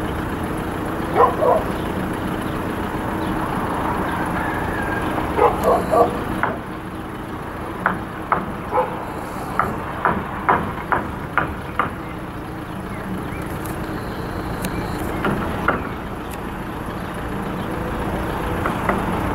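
Steady drone of an approaching HŽPP series 7121 diesel multiple unit, with clusters of short sharp sounds over it, a quick run of them in the middle.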